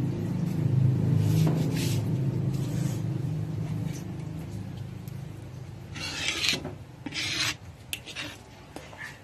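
A metal spoon scraping and rubbing against a pan while stirring a thick mixture of sticky rice flour, coconut milk and brown sugar, with a steady low hum underneath that fades over the first few seconds and louder scrapes about six to seven seconds in.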